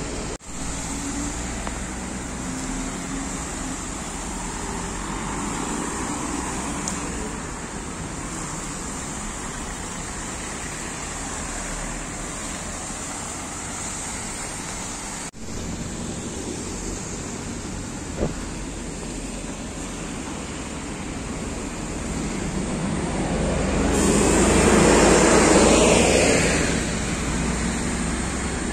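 Town road traffic as a steady hum of passing cars. Near the end one vehicle passes close, swelling to the loudest point and falling in pitch as it goes by.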